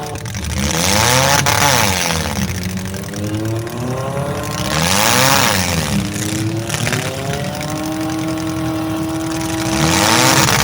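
Demolition derby car engines running hard, swelling louder three times, about four seconds apart, as their pitch rises and falls.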